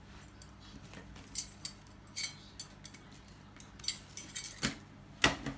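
Light metallic clinks and clatters of kitchen dishes and utensils being handled, a scattered string of sharp clinks with the loudest about four and five seconds in, over a low steady hum.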